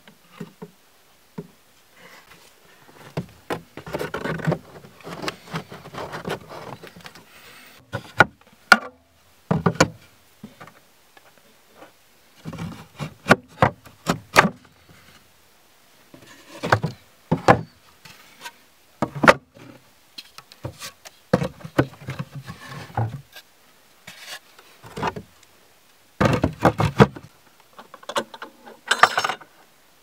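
Wooden hive frames and boards being lifted, set down and scraped inside a wooden beehive: irregular wood-on-wood knocks and rubbing, with a louder cluster of knocks and scraping near the end.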